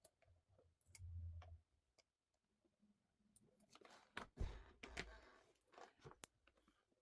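Quiet handling noises of small objects: scattered light clicks, a dull low thump about a second in, and a brief rustle with sharper clicks about four to six seconds in.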